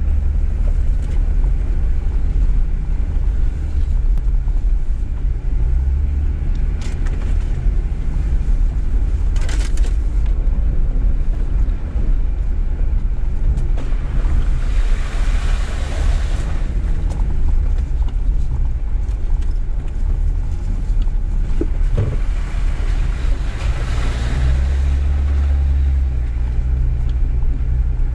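Jeep Gladiator Rubicon driving on an off-road dirt track, with a steady low rumble of engine and drivetrain and tyre noise throughout. Twice the rushing noise swells for a second or two, and there are a few short sharp knocks from bumps or stones.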